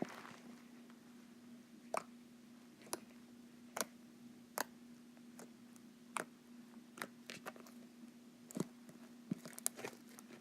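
Homemade slime being handled and squeezed in the hands, giving faint sticky clicks and small pops at irregular moments, roughly one a second. A steady low hum runs underneath.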